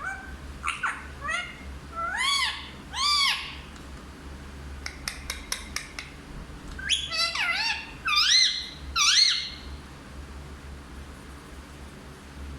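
Indian ringneck parrot calling in short rising-and-falling squawks, in two bursts, with a few sharp clicks between them.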